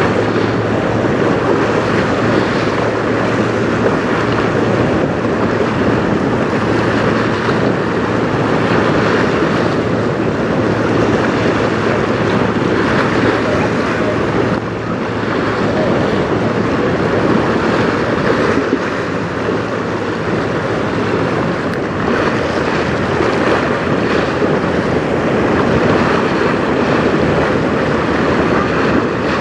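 Strong wind buffeting the microphone over choppy, whitecapped river water: a loud, steady rushing noise, with a faint low steady hum underneath.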